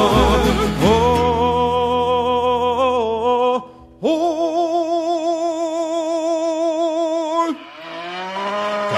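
A song with a singer holding long notes with a wavering vibrato over the backing music. The deep bass drops out and the sound breaks briefly about three and a half seconds in, before another long held note.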